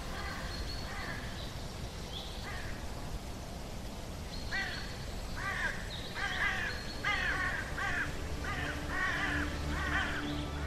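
A crow-like bird cawing harshly. There are a few scattered calls at first, then a quick run of about ten louder caws from about halfway through.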